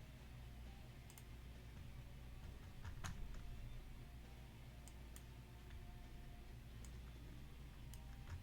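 Faint, scattered clicks of a computer mouse and keyboard, a few seconds apart, over a low steady hum.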